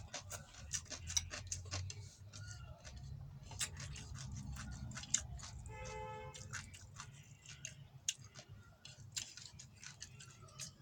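Close-up mukbang eating sounds: a rapid, irregular run of wet clicks from chewing and lip smacking. A brief tone is heard about halfway through.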